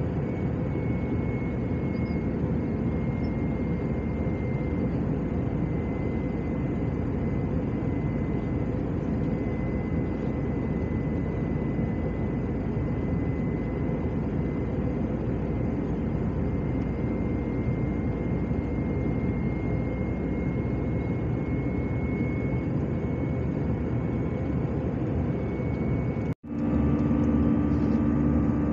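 Steady cabin drone of an Airbus A319 in flight, heard from a window seat beside the engine: jet engine and rushing air with a faint steady whine. Near the end it drops out abruptly for an instant and comes back slightly louder with a deeper hum.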